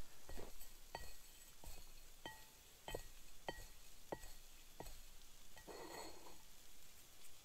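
A hand mixing chopped herbs and spices in a ceramic plate, the plate giving a short ringing clink about eight times at an even pace, then a brief rustle of the herbs about six seconds in.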